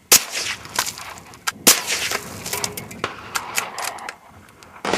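Two rifle shots, sharp cracks about a second and a half apart, from a Ruger American rifle in .22 Long Rifle firing CCI Stinger rounds.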